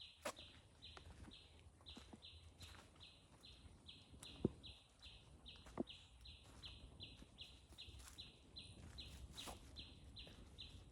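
Faint wildlife chirping: one high chirp repeated steadily, two to three times a second, with a few sharp clicks now and then.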